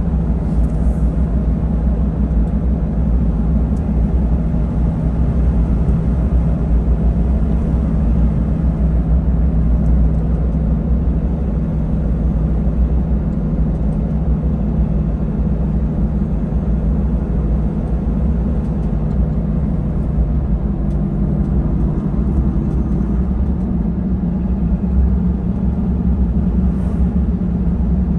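Truck engine and tyre road noise heard from inside the cab while cruising at a steady speed on a paved highway: a steady low rumble that holds level throughout.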